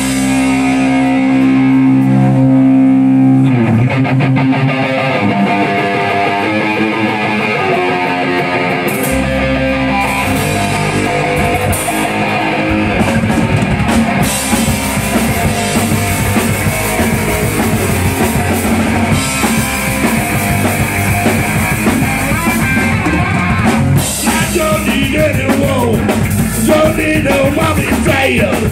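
Live rock band playing: electric guitars and drum kit. A held, ringing chord opens, then the whole band plays, with the low bass end coming in about nine seconds in.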